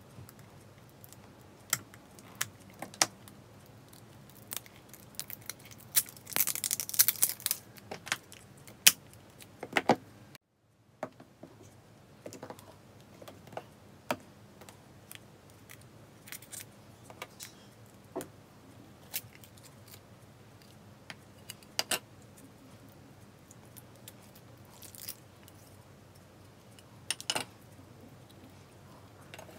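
Scattered sharp clicks and taps of hard plastic as lollipop-shaped slime cases are handled and opened, with a brief dense crinkling rustle about six to seven seconds in. The sound cuts out for a moment around ten seconds in.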